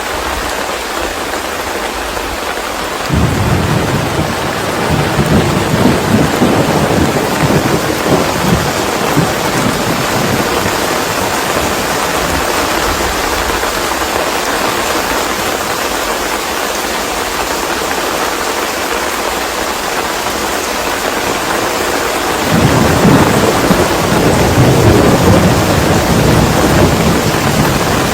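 Steady rain falling, with two long rolls of thunder: one breaking about three seconds in and dying away over several seconds, and another starting near the end.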